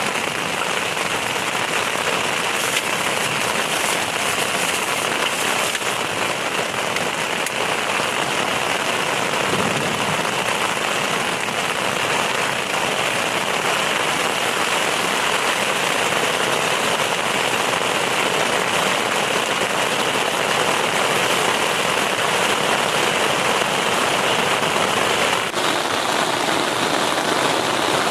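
Heavy rain falling steadily on a surface, a dense unbroken hiss.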